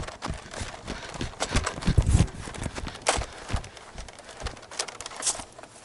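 Quick, irregular footfalls and rustling of someone running across a yard, with heavy thumps and knocks from a body-worn camera being jostled; the biggest thumps come about two seconds in.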